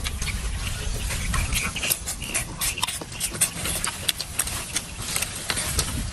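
Close-up eating sounds: irregular crisp clicks, crunches and rustles as shrimp and lettuce leaves are handled and chewed, over a low steady rumble.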